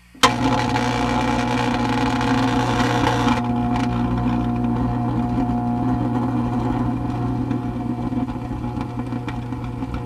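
A sharp click, then a steady electrical hum from a microwave oven running, with a hiss over it that cuts off about three seconds in.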